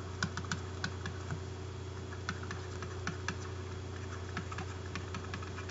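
Light, irregular clicks and taps of a stylus writing on a tablet screen, over a steady low hum.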